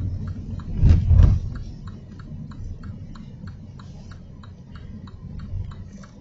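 Low rumble of a car cabin on the move, with two heavy low thumps about a second in, under a steady ticking of about three clicks a second.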